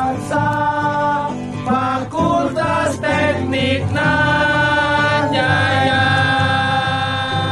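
Music with several voices singing together over instruments, settling into a long held chord in the last few seconds.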